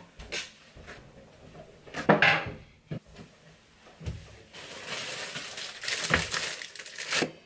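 Dishes and cutlery clattering while a meal is put together: separate knocks of crockery and utensils, the loudest about two seconds in, then a longer, busier stretch of clatter in the second half.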